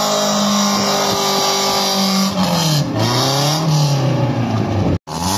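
BMW E36 coupe's engine held at high revs as it spins its rear wheels on wet tarmac. About halfway through the revs dip and rise again, and the sound cuts out briefly near the end.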